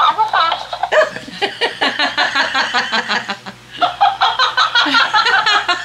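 Electronic dancing cactus plush toy switched on and playing fast, high-pitched chipmunk-style sounds from its small speaker, with people laughing along.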